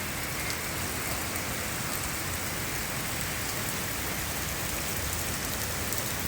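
Heavy rain pouring down in a steady, even hiss, with scattered faint drop ticks on top.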